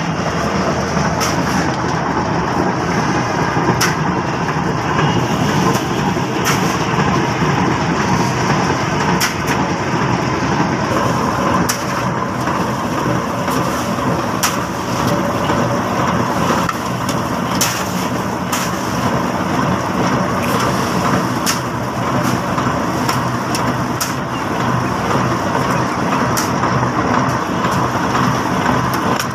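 Centrifugal concrete pipe-spinning machine running: a steel pipe mould turning on its drive wheels with a steady, dense mechanical noise as concrete mix is shovelled in, with occasional sharp clicks.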